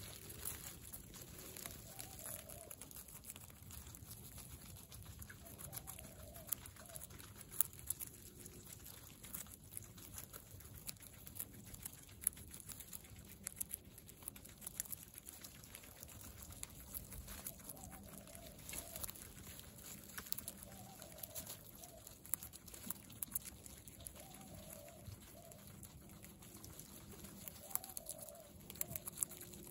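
Guinea pigs crunching and chewing raw carrot slices: a rapid, irregular run of crisp crunches, with short soft calls now and then.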